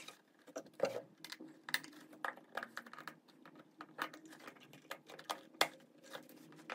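Irregular clicks and light knocks of a Sunlite roller skate plate and its mounting bolts being handled and fitted against the sole of a leather skate boot, with a few louder knocks, one about a second in and one near the end.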